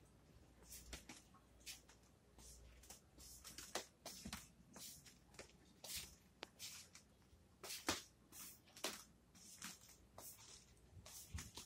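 Faint footsteps on a hard floor: light, sharp taps coming about every half second to second, fairly evenly spaced.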